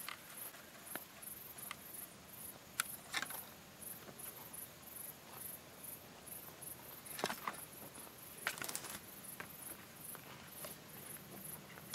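Insects chirping in a steady high-pitched pulse, about two to three chirps a second, with a few scattered short cracks and rustles like steps in dry brush.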